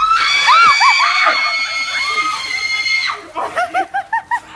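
A person screaming during an ice bucket soaking: one long high-pitched scream held for about three seconds, then a run of short, quick cries.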